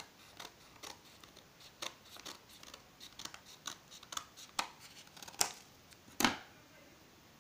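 Scissors snipping through a stack of paper sheets to trim the edges even: a series of short, irregular snips, the two loudest near the end.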